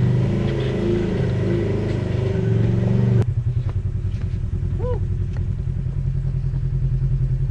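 Polaris RZR side-by-side engine working over a rock climb, its revs rising and falling. About three seconds in it cuts suddenly to another RZR's engine idling with a steady, even low throb.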